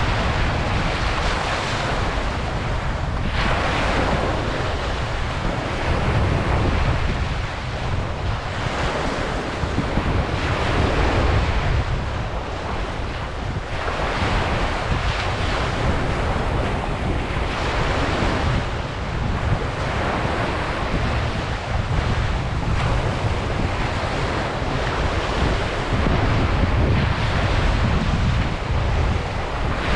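Ocean waves breaking on a beach, surging and washing in every few seconds over a low steady rumble, with wind buffeting the microphone.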